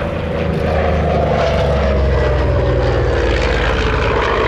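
Grumman F6F Hellcat's Pratt & Whitney R-2800 radial engine in a low flyby pass. The engine note falls steadily in pitch as it goes by, loudest about two seconds in.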